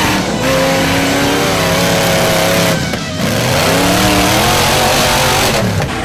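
Off-road rock buggy engine revving hard under load as it climbs, the pitch holding, then rising and falling, with a brief drop about three seconds in.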